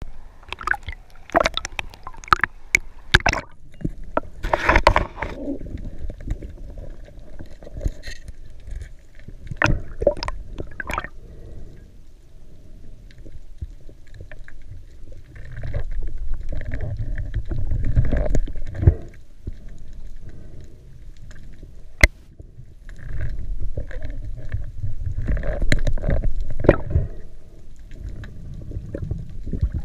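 Sound picked up by an action camera underwater while diving: muffled water rushing and low rumbling from the swimmer's movement, with scattered clicks and knocks, one very sharp click about two-thirds of the way through.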